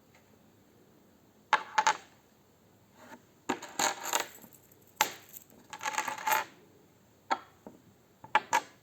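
Small hard plastic pieces clicking and rattling in about six short bursts, as of a Kinder Surprise egg's plastic capsule and toy parts being handled and opened.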